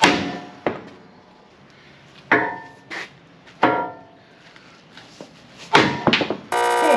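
Hammer blows on steel, about seven separate strikes at an uneven pace, each ringing briefly. A rapid rattling burst starts just before the end.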